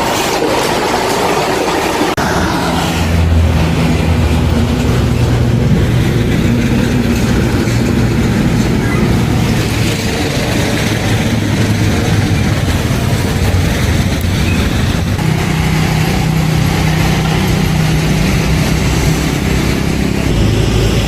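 A motor vehicle's engine running steadily, with road noise, heard as it drives along. The engine drone gets louder about two seconds in.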